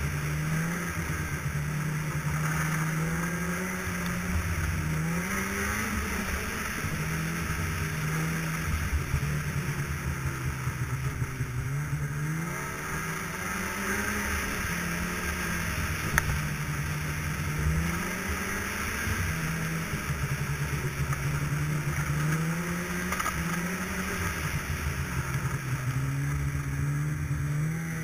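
Snowmobile engine running under a rider on a trail, its pitch rising and falling again and again as the throttle is worked. There is one sharp knock about halfway through.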